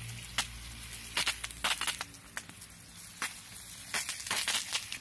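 Dry fallen leaves crackling and crunching in irregular sharp crackles, over a faint steady hiss.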